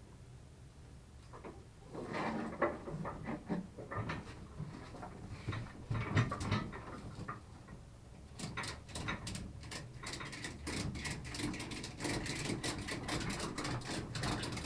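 Ratchet tie-down straps being worked to secure a motorcycle: clattering of straps and buckles, then a long run of rapid, sharp ratchet clicks from about halfway in.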